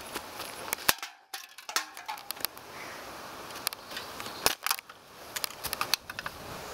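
Handheld camera being jostled: irregular clicks, knocks and rustling, with two sharper clicks about a second in and halfway through.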